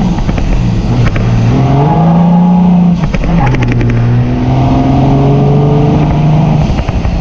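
Diesel pickup truck engine accelerating hard, heard from inside the cab: the engine note climbs, dips briefly about three seconds in, then climbs steadily again before falling off near the end.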